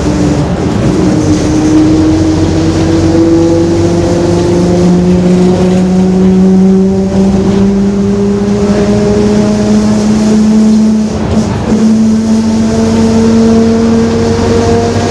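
The differential of a Mercedes-Benz OF-1721 bus howls very loudly. It is a steady whine that climbs slowly in pitch as road speed builds, and it eases briefly about eleven seconds in.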